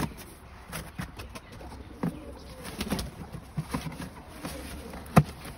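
Domestic pigeons cooing, with scattered knocks and scuffs as a cardboard box is handled; one sharp knock about five seconds in.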